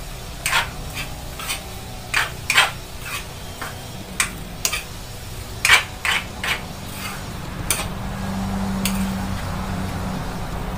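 Metal cooking utensil clinking and scraping against a wok as a vegetable stir-fry is stirred, in irregular sharp clinks. A steady low hum comes in about eight seconds in.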